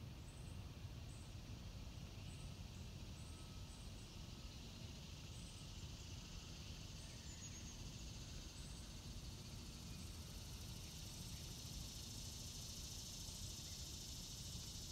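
Faint outdoor ambience: a steady low rumble under a high insect drone that grows louder after about ten seconds, with short high chirps repeating through the first half.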